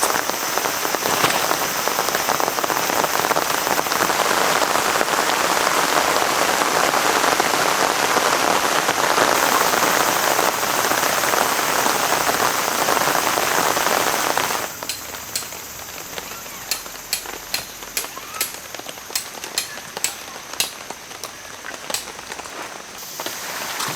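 Steady rain, heavy for roughly the first fifteen seconds. It then gives way abruptly to a quieter patter with separate drops tapping sharply one after another.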